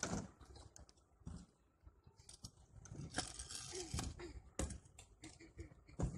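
Freestyle scooter riding on skatepark ramps: a rush of small hard wheels rolling over the ramp about three seconds in, and several sharp knocks and clacks from the scooter's deck and wheels hitting the ramp.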